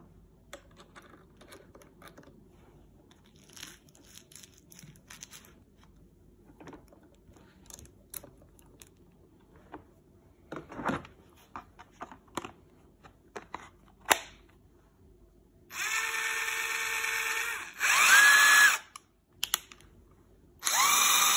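Parkside PDSSA 20-Li A1 20 V cordless impact driver spinning free without load, fitted with a magnetic bit holder: a steady whine for about two seconds, a short burst that rises in pitch, then another run starting near the end. Before the motor runs there are only faint clicks of the bit holder being handled.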